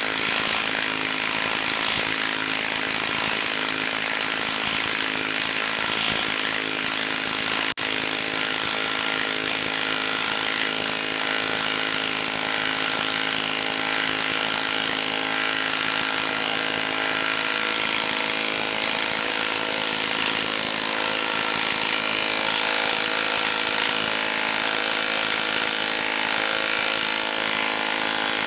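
DeWalt DCF894 20V brushless cordless impact wrench hammering steadily as it drives a 5/8 by 8-inch lag bolt into a log, working hard under the heavy load, with a momentary break about eight seconds in.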